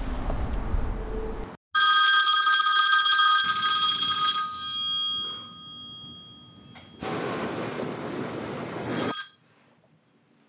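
Telephone ringing: a loud, bright bell-like ring starts suddenly and slowly fades over a few seconds, then a second, shorter ring sounds over a hiss and cuts off. Before it, a low outdoor rumble stops abruptly.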